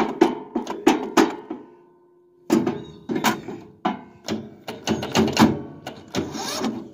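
Hammer tapping rapidly on a lawn tractor's starter motor, about four or five blows a second, with a pause of about a second partway through. The key is held to crank, and the starter tries to turn but is too weak to turn the engine over.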